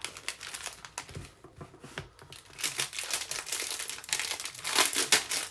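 Packaging crinkling and rustling as it is handled, an irregular crackle that is loudest near the end.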